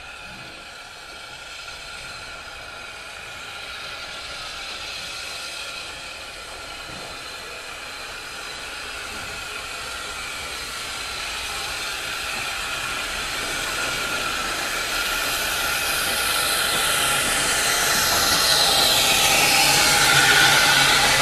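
Steam locomotive approaching slowly on the next track, its hiss of steam growing steadily louder until it draws close alongside near the end.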